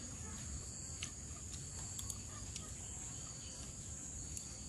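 Insects droning steadily at a high pitch, with a few faint clicks.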